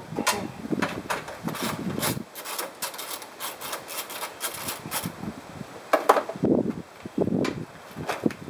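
Hand work on a Chevrolet Silverado grille: scraping, rubbing and clicking as the grille is pried and worked loose at its retaining tabs, loudest about six seconds in.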